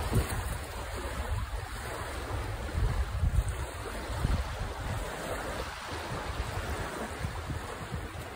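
Wind buffeting the phone's microphone in uneven gusts, over a steady wash of small waves on the shore.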